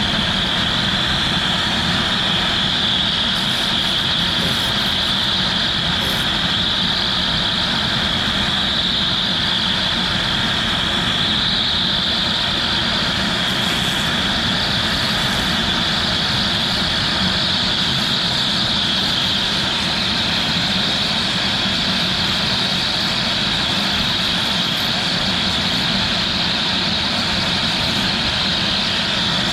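CNC router spindle running at about 8,000 RPM while it cuts PVC at a fast feed, with a steady, high-pitched whine over the cutting noise.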